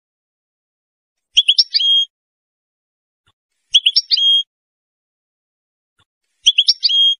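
European goldfinch singing: three short, near-identical phrases a few seconds apart, each a quick run of notes ending in a held whistled note.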